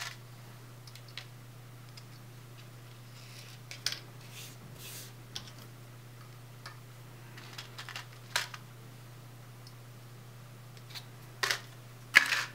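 Scattered small clicks, taps and scrapes of handling at a workbench: a plastic scoop, a glass dish and metal locking pliers, with the sharpest clicks and knocks near the end. A low steady hum runs underneath.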